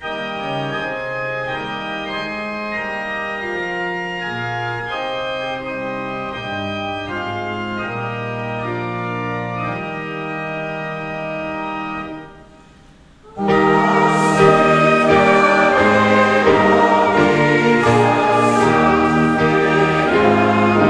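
Organ playing a hymn tune, steady and moderate. About twelve seconds in it fades briefly, then comes back louder and fuller.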